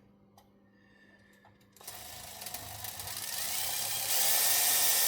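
Electric drill starting up about two seconds in and running, drilling holes in a thin aluminium R/C truck chassis; it gets louder about four seconds in, with a few small clicks before it starts.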